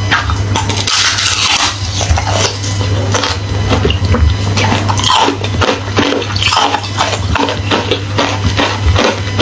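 Hollow frozen ice being bitten and chewed: rapid, irregular crunching and crackling of the thin ice shell, continuing without a break.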